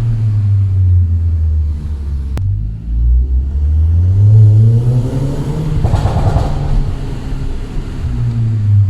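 Audi TT Mk2's turbocharged 2.0 TFSI four-cylinder engine, tuned to 270 HP, revving: the note climbs to a peak about four seconds in and falls back. As it comes off the throttle there is a burst of exhaust pops and crackles, then it settles to a low, steady running note.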